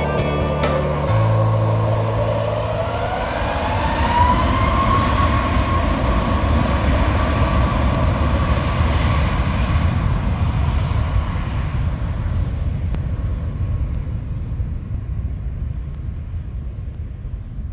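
Jet airliner's engines on the runway: a whine rises in pitch over the first few seconds as the engines spool up, under a loud rumble that slowly fades from about twelve seconds in.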